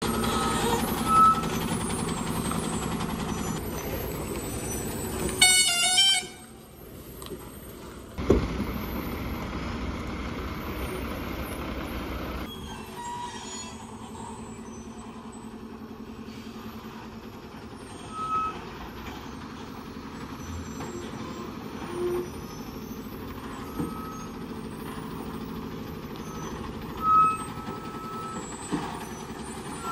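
Heavily loaded goods lorry's diesel engine running as it climbs a hairpin bend. A loud horn blast comes about five and a half seconds in, and short high beeps sound every few seconds, one longer near the end.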